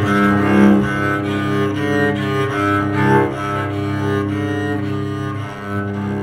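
Homemade electric cello bowed through an amplifier, playing sustained notes that change every half second or so over a steady low drone.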